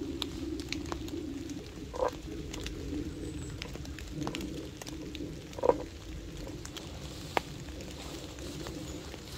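Raindrops ticking irregularly on a wet canvas tarp over a steady low drone, with two brief louder sounds about two and six seconds in.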